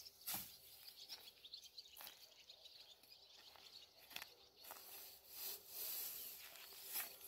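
Hay fork raking and lifting cut, half-dried alfalfa off stubble: irregular dry rustling swishes and scrapes of the tines and stalks, with a stronger swish about a third of a second in and another near the end.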